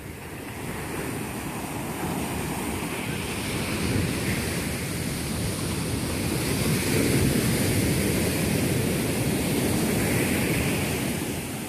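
Ocean surf breaking and washing on a sand beach, with wind buffeting the microphone; the rush grows louder over the first few seconds and eases off near the end.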